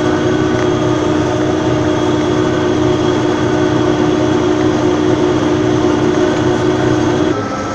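Tractor engine running steadily while pulling a cultivator: a constant drone with a steady whine. The tone changes abruptly near the end.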